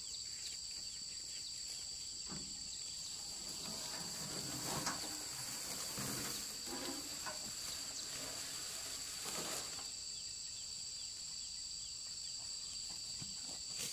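Steady high-pitched insect chorus, holding two even tones throughout, with irregular rustling and soft knocks of handling in the middle stretch.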